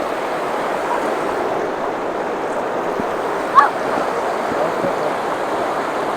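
Steady rush of shallow river water flowing, with one brief sharp high sound a little past halfway.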